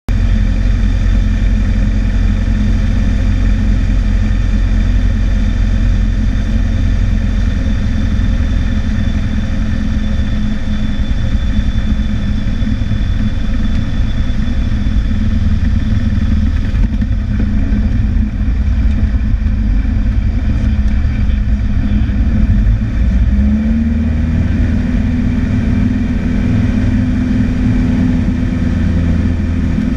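Cessna 152's four-cylinder Lycoming O-235 engine and propeller running steadily, heard from inside the cockpit. About 23 seconds in, the engine note rises a little and holds higher as power is added.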